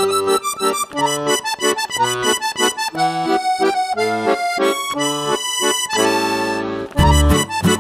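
Background music: a lively melody of short pitched notes with a reedy, accordion-like tone, then a long held chord, with a heavy bass beat coming in about a second before the end.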